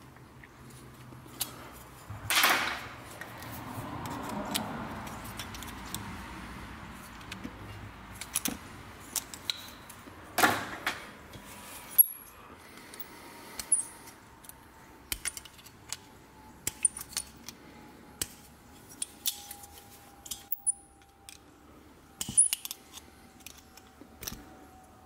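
Copper pieces being bent and handled with hand tools such as pliers: scattered light metallic clicks and clinks, with two longer scraping rasps about two and a half and ten seconds in.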